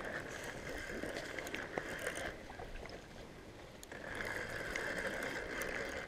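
Spinning reel whirring as it is cranked, reeling in line against a hooked channel catfish, in two spells with a pause of about a second and a half between them.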